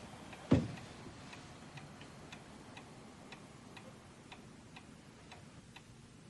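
A clock ticking steadily, about two ticks a second, after a single dull thud about half a second in.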